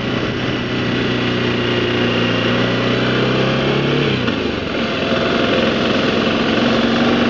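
BMW G650GS single-cylinder motorcycle engine running steadily under way; about four seconds in its pitch drops and it settles at a lower steady note.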